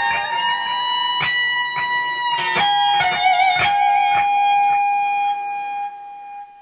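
High-gain distorted electric guitar through a cranked Randall Diavlo RD20 tube amp, playing long sustained lead notes with vibrato and a few sharp chugs. The last note is held and fades out near the end.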